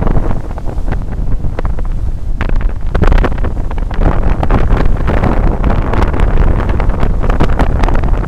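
Loud wind buffeting the microphone over the rush and splash of water along the hull of a sailing yacht under sail, the splashing busier from a couple of seconds in.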